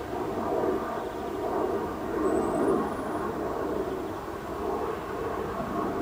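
Buckfast honeybees buzzing around the hive entrance: a dense droning hum that swells and fades every second or two as bees fly close by.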